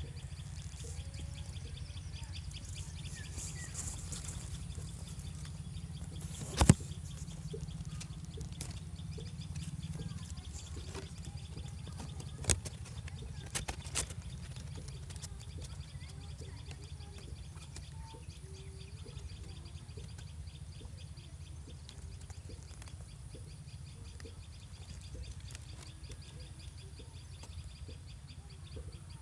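Faint, scattered bird calls and chirps over a steady low rumble and a fine, rapid high ticking. A few sharp clicks come about seven seconds in and again around twelve to fourteen seconds.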